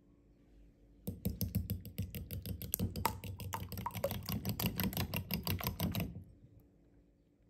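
A metal fork beating raw eggs in a ceramic bowl: a fast, even clicking of the tines against the bowl, about seven strokes a second, starting about a second in and stopping about a second before the end.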